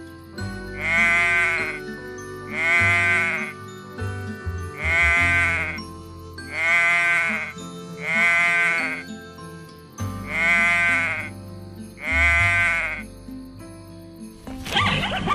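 Sheep bleating: seven separate calls, each under a second long and rising then falling in pitch, about every one and a half to two seconds. Background music plays underneath.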